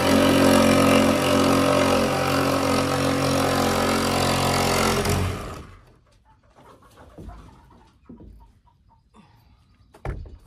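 Cordless reciprocating saw cutting through the painted wooden wall siding of a chicken coop, a loud steady buzz that stops suddenly about five seconds in. After that come quiet handling sounds and a sharp knock near the end.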